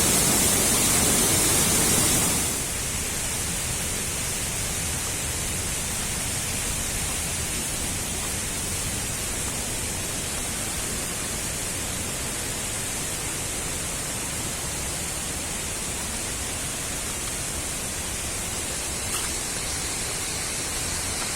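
Steady rushing of water falling at the Neer Garh waterfall. It is louder for the first two seconds or so, then settles a little lower and stays even.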